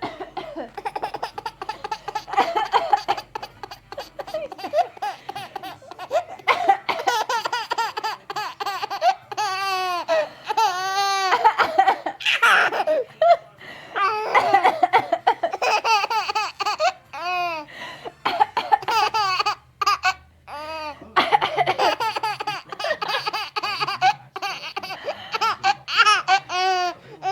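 A baby laughing hard in repeated bursts with short breaks, high and rising and falling in pitch. A woman's coughs come in between, and the laughter is his reaction to them.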